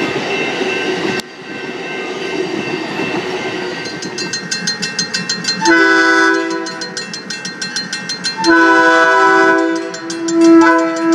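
A passing passenger train's steady rolling noise breaks off about a second in. It gives way to a crossing bell ringing rapidly and a diesel locomotive's multi-chime air horn sounding for the grade crossing: two long blasts, then a short one near the end.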